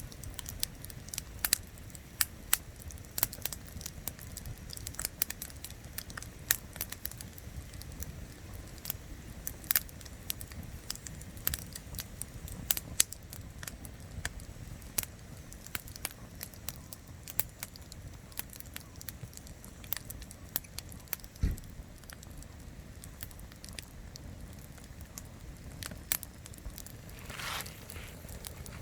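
Wood campfire burning, with irregular sharp crackles and pops from the firewood. A single low knock comes about two-thirds of the way through, and a brief hiss lasting about a second near the end.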